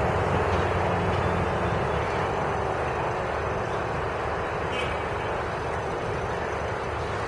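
A diesel passenger train running along the line and slowly fading into the distance, its low engine hum dying away under a steady rushing noise.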